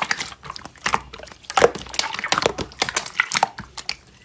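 Slime being squeezed and poked, making quick irregular clicking and crackling pops.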